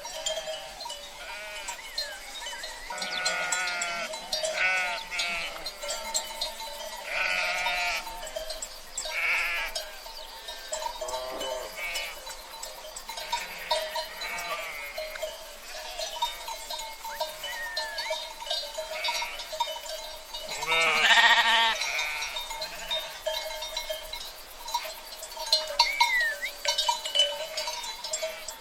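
A herd of sheep bleating, many calls overlapping and coming every second or two, with the loudest bleat about two-thirds of the way through. A steady tone runs underneath throughout.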